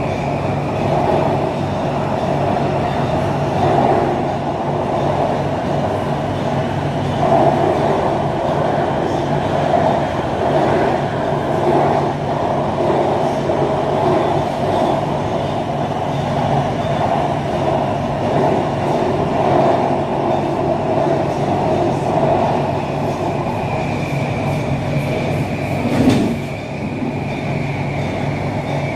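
Steady running noise of a BTS Skytrain heard from inside the car between stations: wheels and motors rumbling. A high whine fades near the start and comes back in the last few seconds, with one sharp knock shortly before the end.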